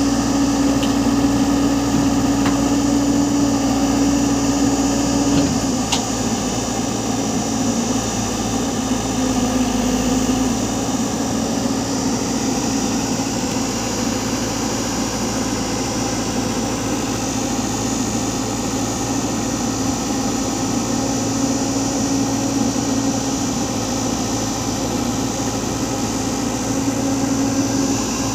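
Excavator's diesel engine running steadily, its note dropping slightly about five seconds in and then holding.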